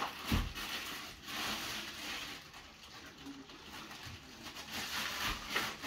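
Clear plastic wrapping rustling and crinkling as a statue part is handled and unwrapped, with a dull thump about a third of a second in and another near the end.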